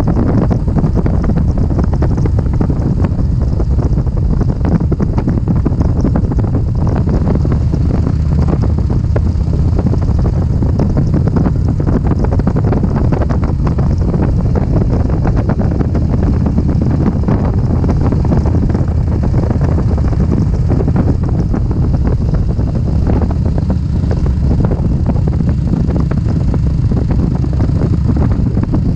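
Steady wind rushing over the microphone of a moving road vehicle, with a constant low drone of engine and road noise underneath.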